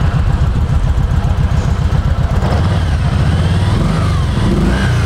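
2011 Kawasaki Vulcan 1700 Vaquero's 1700 cc V-twin engine idling, with steady, even exhaust pulses, and sounding great.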